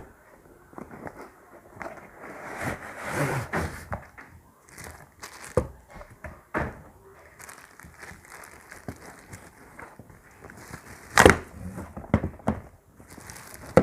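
Tripod packaging being opened and handled: rustling of the box and wrapping, with scattered taps and knocks. The loudest is a sharp knock about eleven seconds in.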